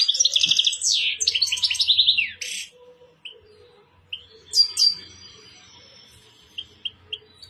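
European goldfinch singing: a fast, twittering run of high notes for about two and a half seconds, then a single short call a couple of seconds later and a few soft, brief chirps near the end.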